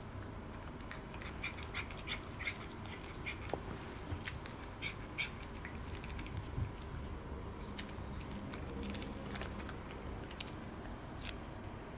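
A cat licking paste treat from a squeeze tube held in a hand: quick, irregular smacking clicks of its tongue and mouth, coming in clusters and thinning out toward the end.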